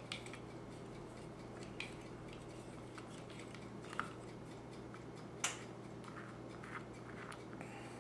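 A few light, scattered metallic clicks and taps from a Leatherman multi-tool being handled and set to the grip screws of a Taurus PT92 pistol, over a steady low hum.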